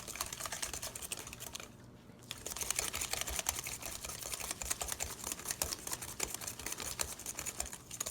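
Rapid, irregular clicking of a wire whisk beating egg into batter in a bowl, with a brief pause about two seconds in.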